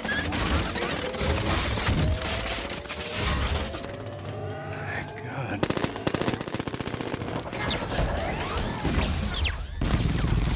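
Film battle sound effects: machine-gun fire in rapid bursts, heaviest a little past the middle, with a slowly rising whine in the first half and an explosion near the end.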